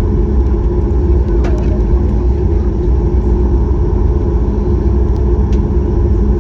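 Steady cabin noise inside a Boeing 737 MAX 8 airliner: a loud, even rumble of its CFM LEAP-1B engines and airflow with a constant hum.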